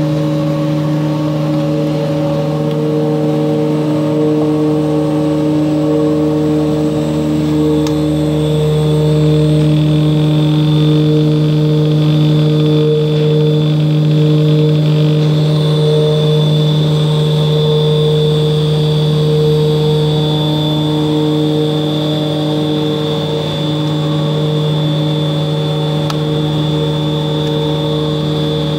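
Twin-shaft continuous paddle mixer running, its electric drive motor and gearbox giving a steady hum with a high whine that grows stronger about halfway through, as the paddles churn wet, lumpy material.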